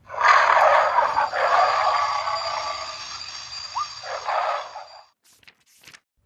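A children's nature sound book playing one of its recorded sound effects through its small speaker: a loud, rough, noisy sound that starts suddenly and fades over about five seconds, followed by two short clicks.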